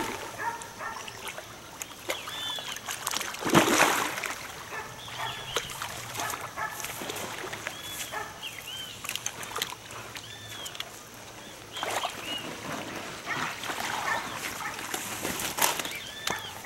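Water splashing in a few loud surges, about four seconds in and again near twelve and fifteen seconds, as a hooked fish thrashes at the surface. Short, arching, high-pitched animal calls repeat about once a second throughout.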